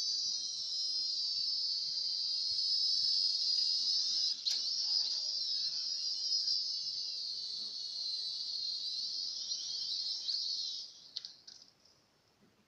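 Small quadcopter drone's propellers whining in flight, several high pitches wavering against each other as the motors change speed. A single knock about four and a half seconds in, and the whine cuts out about eleven seconds in.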